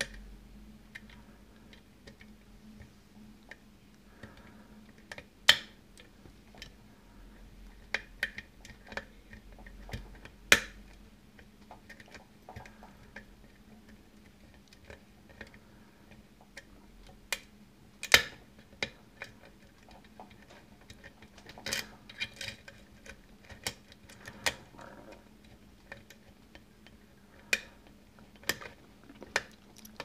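Metal lock pick and tension wrench clicking in the keyway of a brass Yale pin-tumbler cylinder: irregular small ticks with a few sharp, much louder snaps. The pins are being worked again after a lost false set, trying to set them back.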